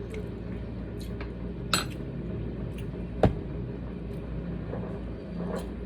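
A metal spoon clinking against a glass pickle jar: two sharp clinks about a second and a half apart, the first ringing briefly, with a few fainter taps, over a steady low hum.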